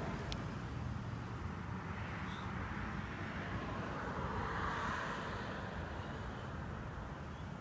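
Distant road traffic: a steady rumble with a passing car swelling up about four to five seconds in.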